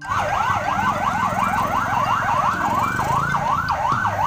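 Ambulance siren on a PMI (Indonesian Red Cross) ambulance sounding a rapid yelp, its pitch rising and falling about three times a second, over low traffic rumble.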